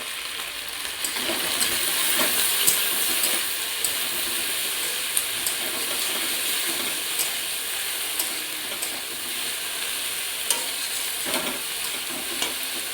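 Chopped okra frying in oil in a pan, a steady sizzle, as it is stirred, with a utensil clicking against the pan now and then.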